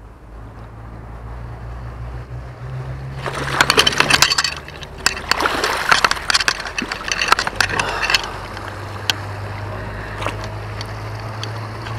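Shallow river water splashing and sloshing close to the microphone, starting about three seconds in, with many small knocks and clicks. It settles after about five seconds into a quieter steady hum with an occasional click.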